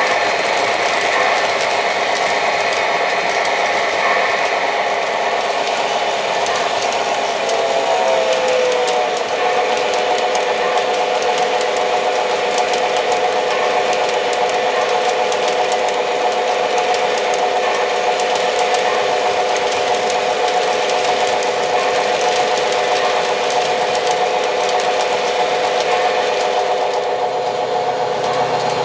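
O-gauge model coal train of loaded hopper cars rolling past on three-rail track: a steady running clatter of metal wheels on the rails with a steady motor hum, which drops slightly in pitch about eight seconds in.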